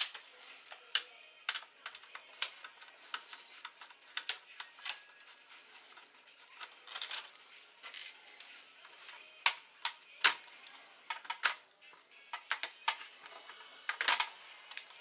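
Irregular clicks and taps of a small screwdriver, screws and plastic laptop parts being handled while the laptop's motherboard is unscrewed and worked loose from the case.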